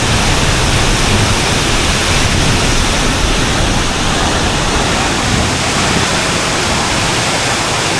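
Waterfall's loud, steady rush of falling water, with a deep rumble that thins out about two-thirds of the way through.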